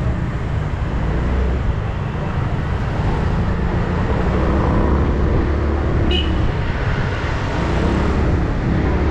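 2008 Yamaha R6's inline-four engine with Akrapovic exhaust, running steadily while the bike rides through traffic, with road and wind noise. A short high beep sounds about six seconds in.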